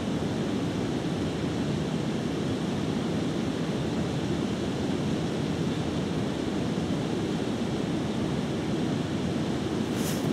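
River water rushing steadily below a weir, with a few faint clicks near the end.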